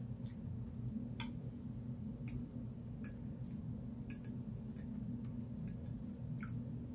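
Irregular wet clicks and smacks of a person's mouth chewing food, about a dozen in the span, over a steady low hum.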